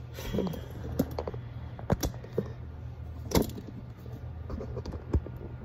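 Glass canister and its glass lid being handled on a granite countertop: a series of light clinks and knocks, the two loudest about two and three and a half seconds in.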